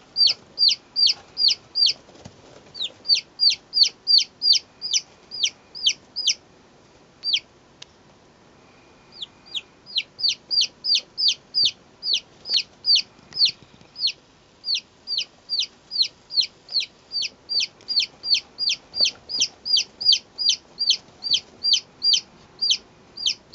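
Day-old Light Sussex chicks peeping: a steady string of high, short, falling cheeps about three a second, broken by a pause of a couple of seconds about a third of the way in.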